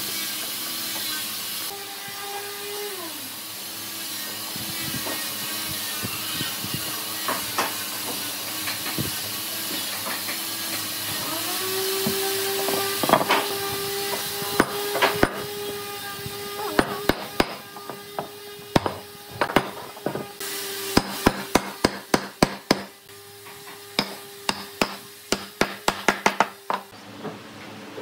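Repeated sharp knocks on wood, coming in quick irregular runs that grow denser in the second half. A steady motor hum runs underneath; it glides up about twelve seconds in and cuts off near the end.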